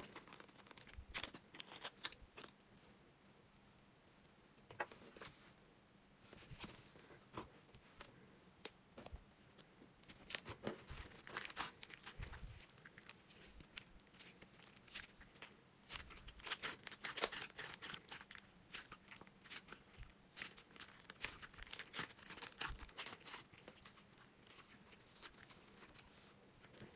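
Thick green slime being squeezed, poked and stretched by hand, giving faint sticky crackles and small snapping clicks, busiest in two spells in the middle and later part.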